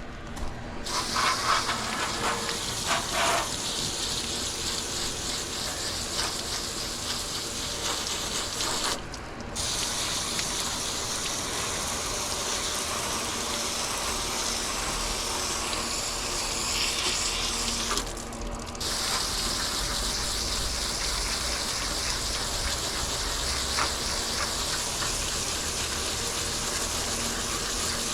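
Water running or gushing steadily, cutting off briefly twice, about nine and eighteen seconds in.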